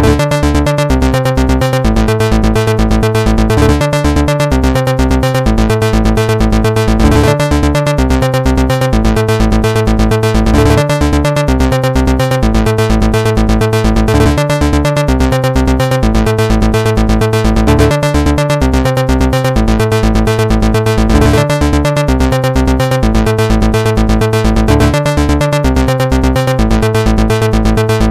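Electronic background music with a steady fast beat and repeating synthesizer notes.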